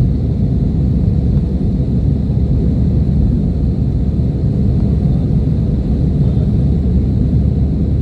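Steady low rumble of an airliner's engines and airflow, heard inside the cabin.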